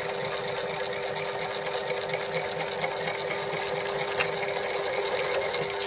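Metal lathe running steadily at constant speed, a continuous mechanical hum with a sharp tick about four seconds in.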